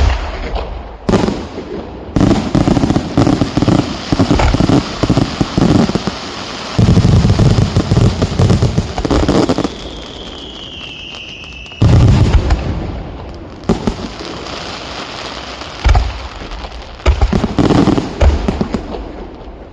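Fireworks display: volleys of sharp bangs and crackling bursts from aerial shells, with heavy booms at the start, about twelve seconds in and about sixteen seconds in. A falling whistle comes just before the twelve-second boom.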